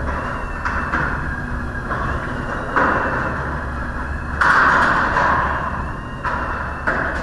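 LiftMaster 81600 garage door opener running, moving the big garage door through its cycle: a steady motor hum with the door rolling and rattling along its track, a few clicks, and a louder surge of rattle about four and a half seconds in.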